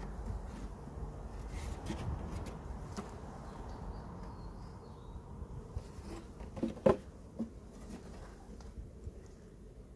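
Honeybees buzzing faintly around an open hive. A few sharp knocks come near seven seconds in as the hive's metal roof is handled; the loudest is one clunk.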